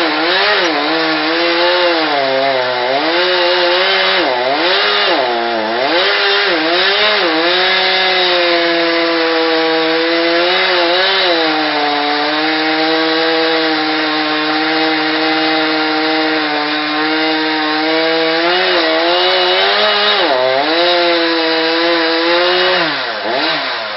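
Chainsaw cutting into a tree trunk, its engine speed dipping and recovering under load, then holding steady for several seconds before the revs fall away near the end.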